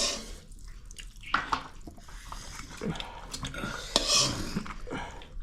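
Irregular clinks and scrapes of a utensil against a plate during a meal.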